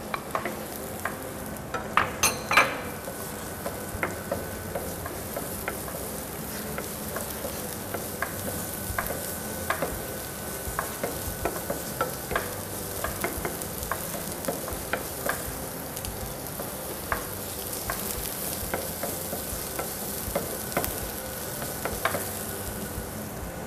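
Chopped food sizzling in a hot frying pan while a wooden spoon stirs and scrapes it, with scattered clicks and taps of the utensil against the pan. A few louder knocks come about two seconds in.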